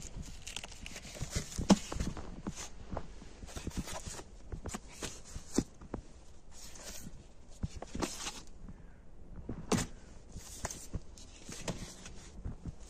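Cardboard record sleeves being flipped through by hand: irregular sliding and rustling with soft knocks, and sharper knocks about two seconds in and near ten seconds in.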